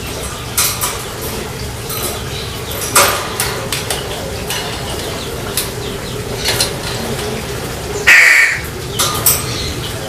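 A crow gives one loud, harsh caw about eight seconds in. Scattered sharp clicks and taps and a steady low background noise are also heard.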